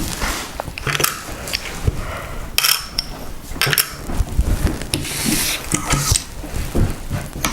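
Irregular small clicks, taps and rustling as objects are handled at close range, with several brief louder rustles.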